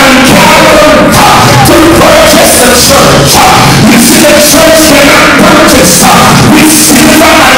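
A man singing into a handheld microphone over music, amplified very loud.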